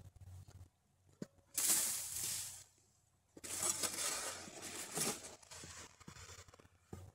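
Two long scrapes of a snow shovel pushing and lifting snow, the first about a second and a half in and a longer one near the middle, with a few light knocks and footsteps in the snow around them.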